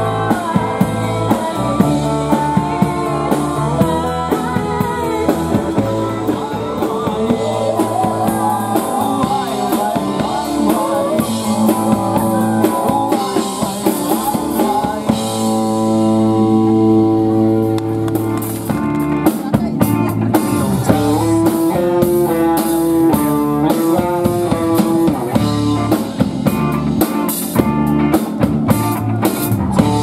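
A live rock band playing: a drum kit keeping a steady beat under guitar chords, with a voice singing.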